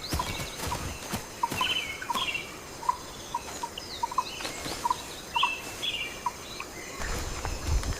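Rainforest birds calling: short chirping phrases repeat over a run of short, lower piping notes. Scattered sharp clicks and a brief low rumble come near the end.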